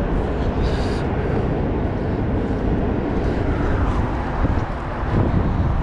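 Steady wind rumble on the microphone, a dense noise heaviest in the low end, with no clear event standing out.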